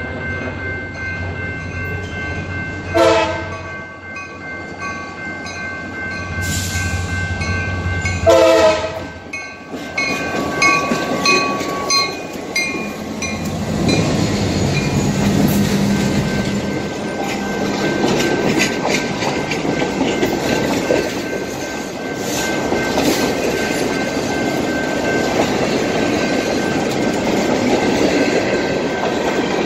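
A diesel-hauled freight train approaching and passing: two short horn blasts with a bell ringing steadily, then the locomotive's diesel engine going by close, then freight cars rolling past with wheels clacking over the rail joints.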